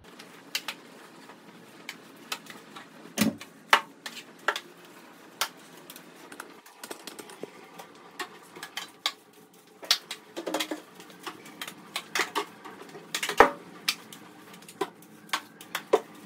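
A broom sweeping a floor, with irregular sharp taps and knocks throughout. The loudest knocks come about three seconds in and again near thirteen seconds.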